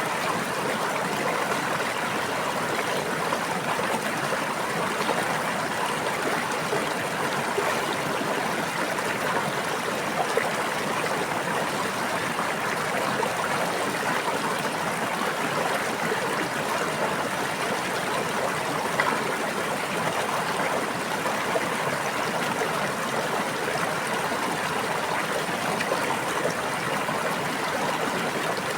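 A brook flowing and babbling steadily, an even rush of water with small splashes and gurgles scattered through it.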